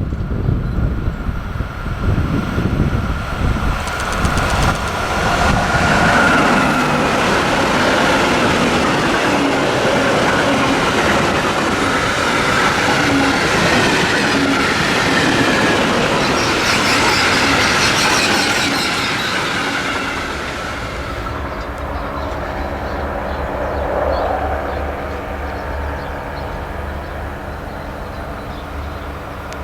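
A train passing close by: a loud rumble and rattle of wheels on the rails that builds over the first few seconds. It is loudest through the middle, then eases off about two-thirds of the way in to a quieter, steady hum.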